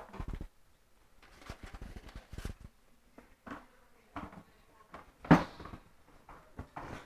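Parts of a vacuum cleaner being handled and fitted back together during reassembly: scattered clicks and knocks, the loudest about five seconds in.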